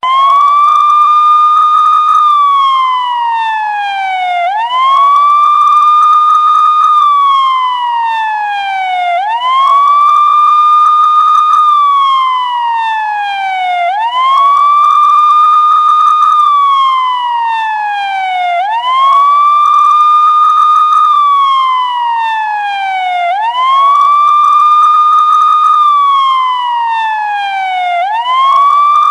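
Police car siren sounding a slow wail: each cycle climbs quickly to a high note, holds it for about two seconds, then slides slowly back down, repeating about every four and a half seconds.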